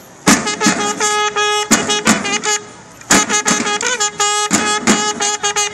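Bugle call of a drum and bugle corps: a bugle sounds two phrases mostly on one held note, with a short break between them, while snare drums beat along.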